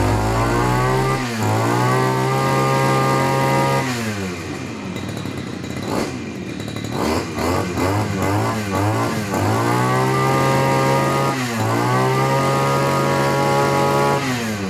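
Tasto 328 two-stroke brush cutter engine revved to full throttle and let back down several times. It is held high for a couple of seconds each time, with a run of quick throttle blips in the middle and a short dip between the last two holds.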